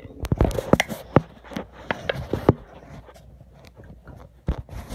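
Handling noise on a phone: fingers rubbing and tapping over the phone and its microphone, a string of short knocks and rustles, quieter for about a second and a half before more knocks near the end.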